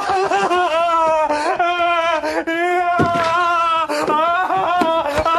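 A man's high-pitched panicked shrieking and whimpering, drawn out and wavering in pitch, breaking off for a moment several times.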